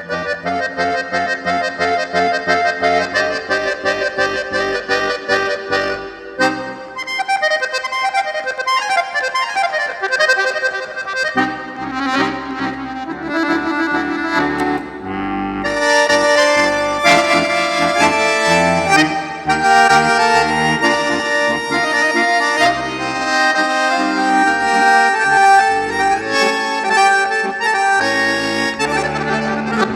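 Accordion (sanfona) playing an instrumental piece, melody over chords and bass. The low bass stops for several seconds about six seconds in and comes back around eleven seconds, and the playing grows fuller in the upper range from about sixteen seconds on.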